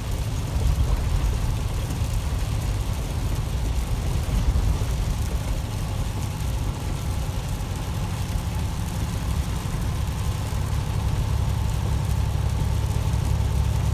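Semi truck running at highway speed on a wet road, heard from inside the cab: a steady low engine and drivetrain rumble under an even hiss of tyres on the wet surface, the rumble growing a little stronger near the end.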